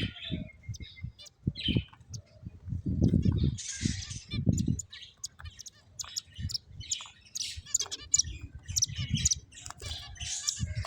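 Pet finches chirping: many short, high chirps and tweets, with a few low thumping sounds in between.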